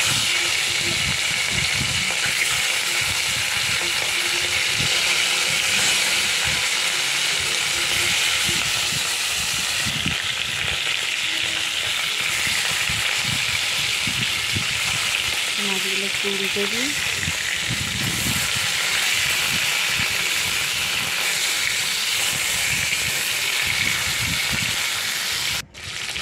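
Pieces of parshe (gold-spot mullet) fish frying in hot oil in an iron kadai: a loud, steady sizzle with crackling.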